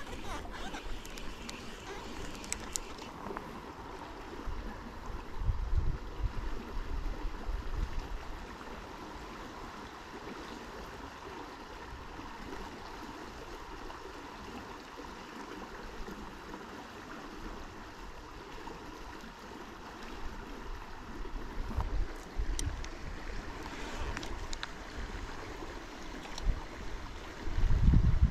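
A river running steadily, a constant rush of water. Low rumbles break in about five seconds in, briefly around twenty seconds, and again near the end.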